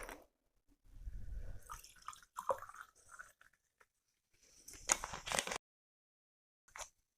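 Close-miked mouth sounds of a person eating and drinking: chewing and smacking in separate bursts. There is a low rumble about a second in, a few sharp clicks a moment later, and the loudest, noisiest burst around five seconds in.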